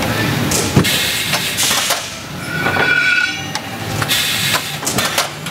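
Clutch-factory shop-floor noise: machinery running with a steady air hiss, scattered metallic clicks and clanks, and a brief whine about halfway.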